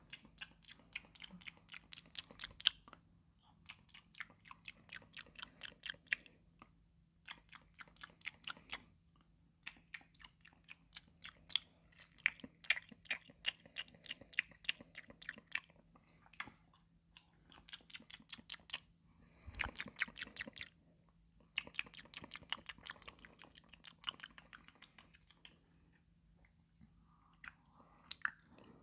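Close-miked crunching and chewing of raw cucumber: crisp rapid clicks come in bursts a second or two long with short pauses between, over a faint steady hum.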